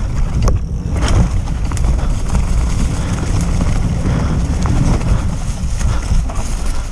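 Mountain bike riding down a rough grassy trail: steady wind buffeting on the camera microphone and rumbling of the tyres over the ground, with occasional sharp clicks and knocks from the bike rattling over bumps.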